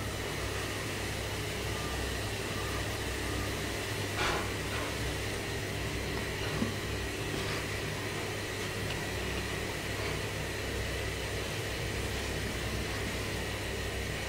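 Steady low hum and hiss with a thin, faint high whine. There is a soft tap about four seconds in and another about six and a half seconds in.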